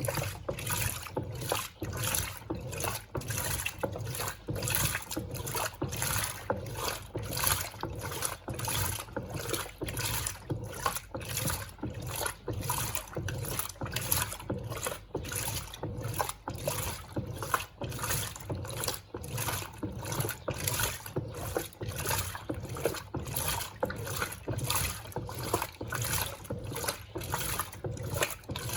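Electrolux Turbo Compacta 7 kg (LTC07) washing machine agitating its wash: water and clothes sloshing in an even rhythm of about two strokes a second.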